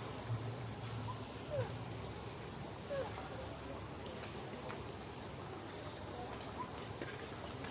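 Steady high-pitched drone of forest insects, two even tones held without a break, with a couple of faint short chirps in the background.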